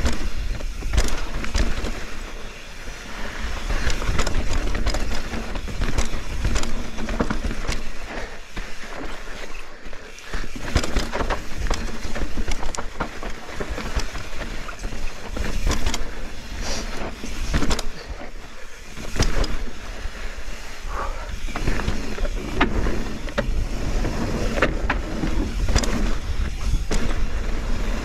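Full-suspension mountain bike descending a loose, dusty dirt trail at speed: a steady rush of wind on the microphone and tyre noise on gravel, with frequent sharp clatters and knocks from the bike rattling over bumps.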